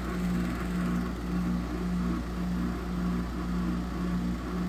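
2008 Frigidaire 6,500 BTU window air conditioner running, its compressor and fan giving a noisy hum that throbs about twice a second. It is barely cooling, which the owner suspects is low refrigerant charge.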